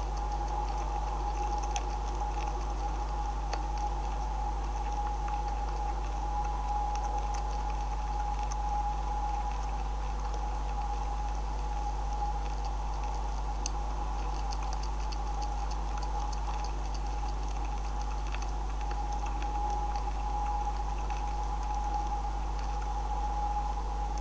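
Steady electrical hum with faint, irregular clicks and crunches of North American beavers chewing on scattered feed.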